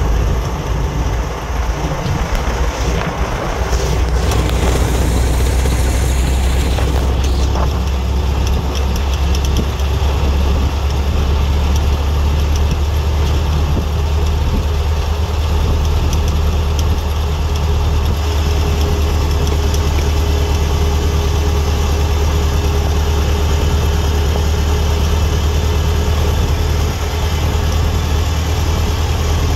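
Ford Model T's four-cylinder flathead engine running as the car drives along, heard from the open cab as a steady deep drone with road and wind noise. The drone wavers in the first few seconds, then settles and grows stronger about four seconds in.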